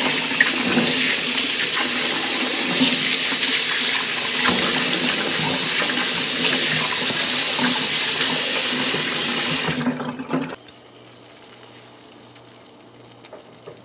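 Kitchen faucet running water over cut potatoes in a bowl in a stainless steel sink, splashing as hands rub and rinse them. The water stops abruptly about ten seconds in, leaving only a faint steady hum.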